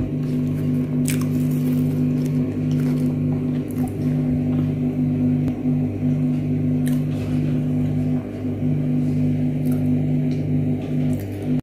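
Background music of sustained low droning notes that shift pitch every few seconds, with a few faint clicks.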